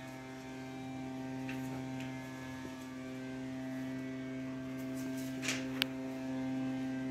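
Steady electrical hum on the telephone line, a low buzz with a stack of overtones, with a few faint clicks about halfway through.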